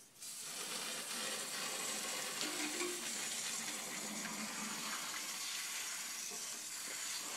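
Water Saber cleaning wand spraying a jet of water into a small residential boiler's soot-clogged heat exchanger: a steady hiss of spray that comes on suddenly at the start, washing carbon off the boiler's passages.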